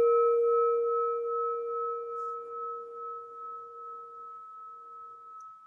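A struck meditation bell ringing out after the strike and slowly fading, its clear tones pulsing gently as they die away. It marks the end of the meditation session.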